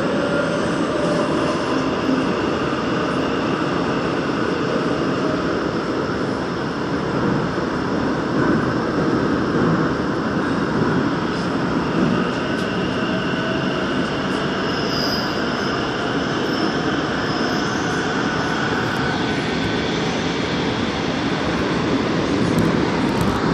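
Daegu Metro Line 2 subway train running at speed through a tunnel: a steady rumble of wheels on rail and traction motors.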